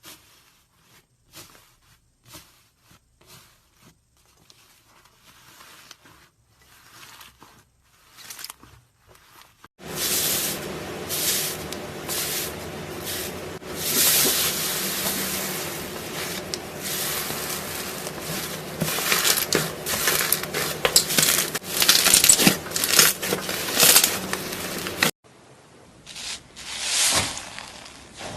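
Slime being squished and stretched by hand: wet, sticky crackling and popping, faint at first, then much louder and denser from about a third in until it cuts off suddenly near the end.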